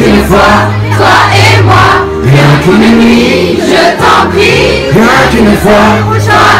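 Loud live music: a backing track with a heavy bass line, with voices singing over it into a microphone.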